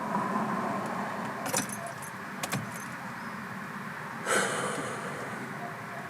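Car keys clicking and jangling at the ignition of an Opel Corsa Easytronic: a few sharp clicks, then a short rattle about four seconds in, over a steady low hum in the car's cabin.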